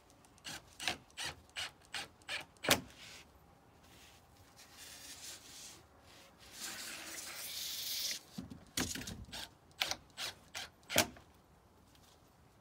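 Skirting trim being handled and fitted by hand along the base of a house: a run of sharp clicks and knocks, a stretch of scraping rub in the middle, then more sharp clicks.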